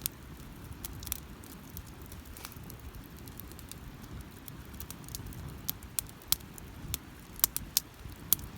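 Wood campfire crackling: sharp irregular pops over a low steady rumble, with a quick run of louder pops near the end.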